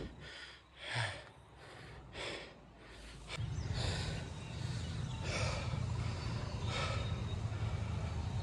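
A cyclist's heavy breathing while pedalling uphill: short hard breaths out, one every second or so. A steady low rumble sets in about three seconds in.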